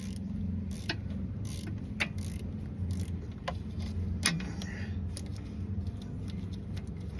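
Snap-on 10 mm flex-head ratcheting wrench clicking at uneven intervals as it is worked on a bolt, over a steady low hum.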